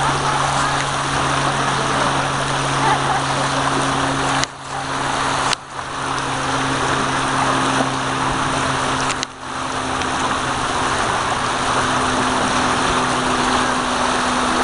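Tidal current rushing and churning through a narrow lagoon inlet: a loud, steady rush of water, with a steady low hum underneath. The sound cuts out briefly three times.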